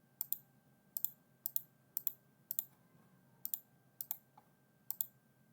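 Clicking at a computer keyboard and mouse: about a dozen short, sharp clicks, several in quick pairs, coming irregularly about every half second while a ladder-logic program is edited.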